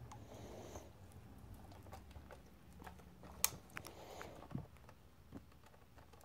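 Faint scattered taps, soft thumps and plastic clicks as a kitten bats and grabs at a lure dangling from a plastic toy, with one sharper click about three and a half seconds in. A low steady hum runs underneath.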